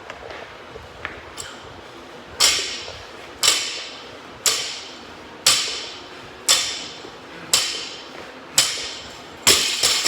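Metal clanking about once a second, eight times in a row, each clank ringing briefly, typical of a loaded barbell touched to the floor between fast deadlift reps.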